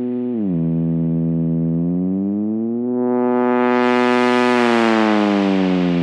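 Moog-style synthesizer bass from an Ableton Live instrument rack, holding one note that glides in pitch: a quick drop just after the start, a slow rise from about two seconds in, and a slow slide down near the end, with long glide (portamento) time dialled in. About three seconds in its filter opens and the tone turns much brighter and buzzier, then mellows again.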